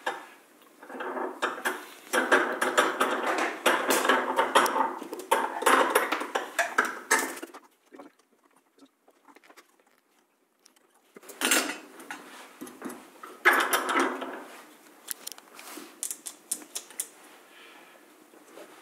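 Small metal tools and hardware clinking and rattling as they are handled on a workbench: about six seconds of busy clatter, a quiet pause, then two short bursts and a few scattered clicks.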